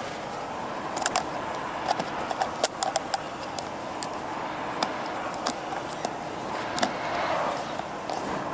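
Steady road and engine noise inside a moving truck's cab, with a run of irregular sharp clicks and rattles from about a second in until near the end.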